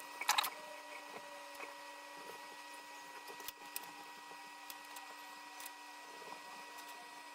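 Faint scattered clicks and small taps over a steady electrical hum, with a couple of louder sharp sounds in the first half second.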